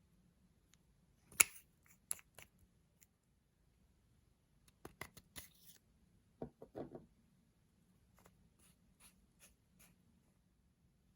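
Slime and makeup being handled by hand: scattered sharp clicks, pops and crackles, the loudest about a second and a half in, with a softer crunchy stretch around the middle and faint ticks near the end.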